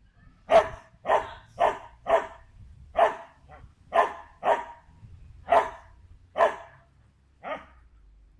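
A dog barking about eleven times, in quick runs of two or three about half a second apart, the last bark weaker.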